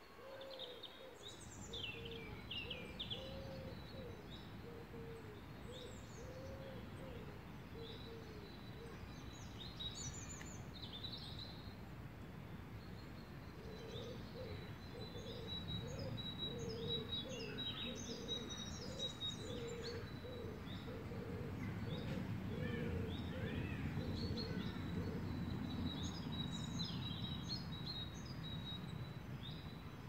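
Wild birdsong: several small birds chirping and trilling high, with a low call repeated about once a second in two long runs, over a steady low rumble that swells past the middle.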